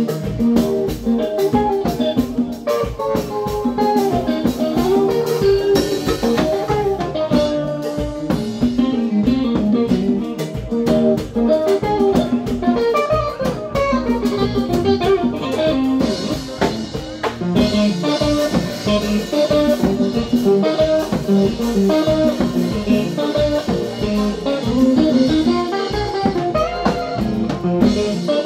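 Live band playing an instrumental passage in a blues feel: a Fender Stratocaster electric guitar plays moving melodic lines over a drum kit.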